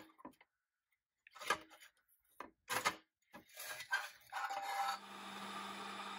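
Steel wheel axle of a 1960s Nylint Ford Bronco pressed-steel toy scraping and rubbing against the metal body as it is worked out through its holes, in several short scrapes. About five seconds in, a steady hum with a low tone sets in.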